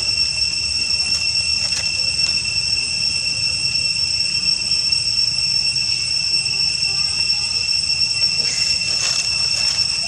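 Steady, high-pitched drone of insects calling in chorus, holding unchanged throughout.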